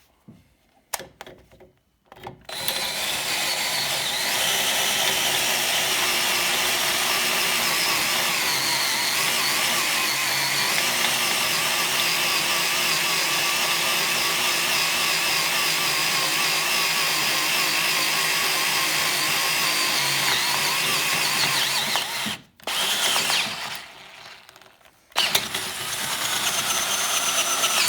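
Handheld electric drill running steadily under load, boring a larger bit through a small pilot hole in a steel piece lubricated with cutting oil. It runs for about twenty seconds, stops, gives a short burst, then runs again near the end. A few light clicks come before it starts.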